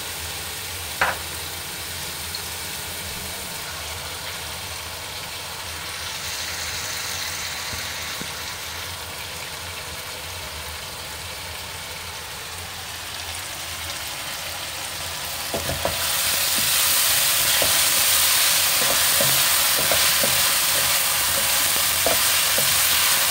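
Thick onion-tomato masala sizzling in a wok over a gas flame. About 16 seconds in, the sizzle gets clearly louder as pan-fried chicken pieces go into the hot masala, with a wooden spoon scraping and knocking in the wok as it is stirred.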